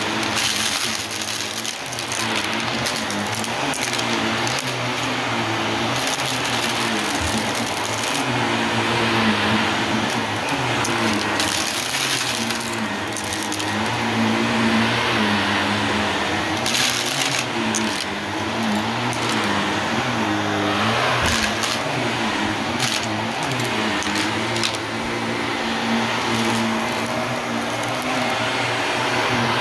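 Shark Navigator Lift-Away Deluxe upright vacuum running over a rug, its motor hum rising and falling slightly in pitch as it is pushed back and forth, under a steady rush of air and scattered sharp clicks and rattles.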